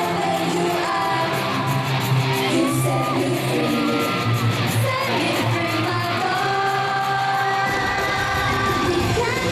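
K-pop girl group singing live over a pop backing track in an arena, heard from among the audience with fans yelling and cheering.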